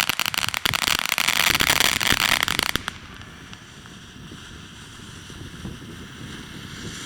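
Fireworks crackling densely, a rapid run of sharp pops, which stops abruptly about three seconds in and leaves a quiet hiss and low rumble.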